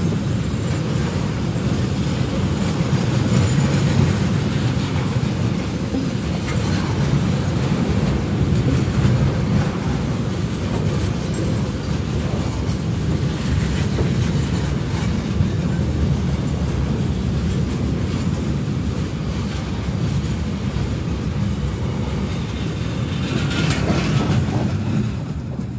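Container freight train's wagons rolling past at close range: a steady rumble of bogie wheels on the rails with clickety-clack and faint wheel squeal. It starts to die away at the very end as the last wagon goes by.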